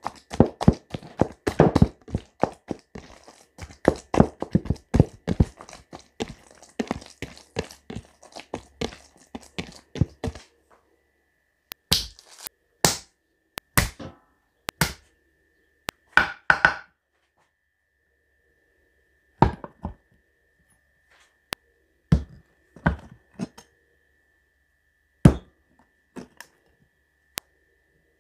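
Knife chopping on a cutting board: rapid, dense strokes for about the first ten seconds, then scattered single knocks.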